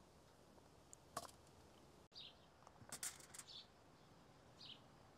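Near silence, with a few faint, short bird chirps and soft clicks.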